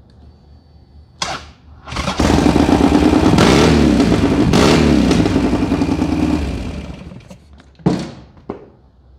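Buell XB12SS Lightning's air-cooled V-twin engine catching about two seconds in after a short first burst, running and revved up and back down, then switched off and winding down near the end. Two sharp knocks follow.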